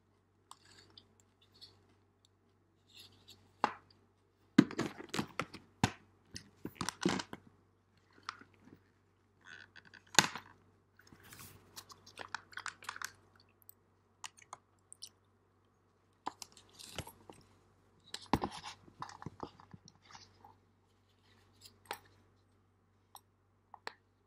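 Close-miked chewing of spicy stir-fried instant noodles and kimchi, coming in irregular bursts of wet, crackly mouth sounds with short pauses between them, and occasional sharp clicks.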